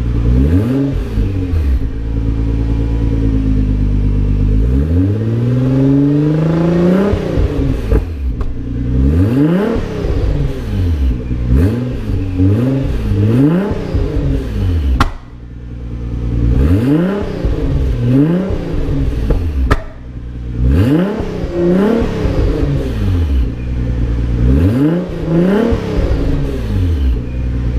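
Nissan GT-R R35's twin-turbo 3.8-litre V6 revved repeatedly at a standstill through a GTC Titan 4-inch exhaust with non-resonated mid pipe and downpipes. There is one long climb in revs about five seconds in, then a run of short blips, each rising quickly and falling back toward idle.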